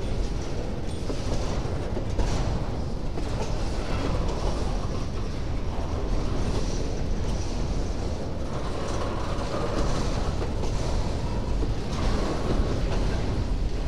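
Empty covered hopper cars of a freight train rolling past, a steady rumble and rattle with the wheels clicking over rail joints.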